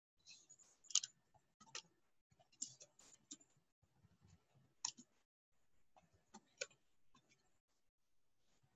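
Near silence broken by a handful of faint, irregular clicks.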